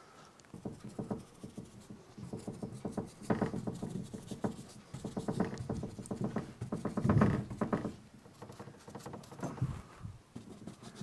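Paintbrush dabbing paint onto a model railroad backdrop wall: runs of quick, soft taps, loudest about seven seconds in.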